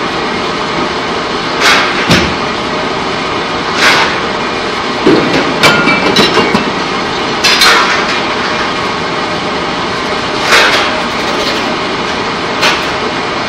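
Pipe-coating line machinery running with a loud steady din, broken by short loud bursts every second or two.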